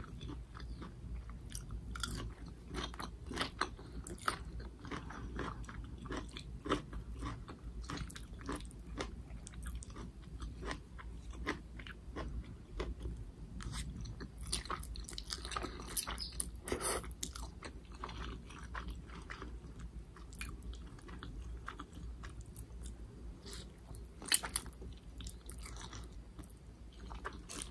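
Close-miked chewing of Samyang spicy noodles and vegetables: many small irregular clicks and crunches of food in the mouth, over a steady low hum.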